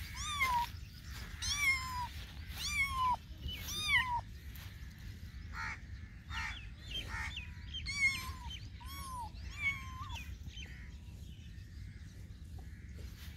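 Kitten meowing repeatedly in high-pitched calls, about one a second, each dropping in pitch at the end. The meows stop about ten seconds in.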